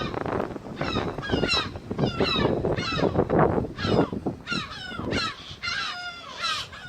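A flock of gulls giving repeated, overlapping harsh alarm calls, each call falling in pitch, in reaction to a Harris hawk flying over the site. A low rushing noise runs beneath the calls for the first few seconds.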